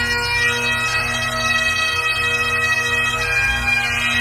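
Bagpipes playing a slow melody over their steady drones.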